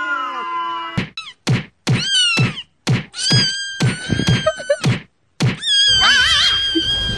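Edited cat-fight meme sound effects: a long cat meow fades out, then a quick run of sharp slap-like hits, about two a second, alternating with high squeaky cat cries. Near the end comes a wavering squeal over a hiss.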